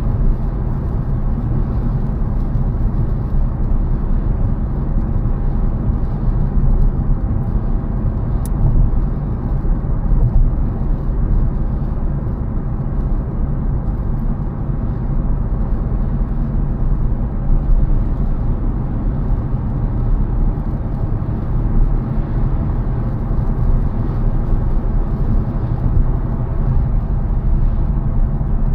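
A car driving steadily along a road: constant engine and tyre rumble, heaviest in the low end, with no change in speed or gear.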